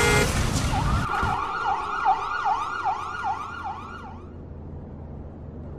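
A siren wailing in quick rises and falls, about two to three cycles a second, fading out about four seconds in. It follows a loud noise dying away in the first second.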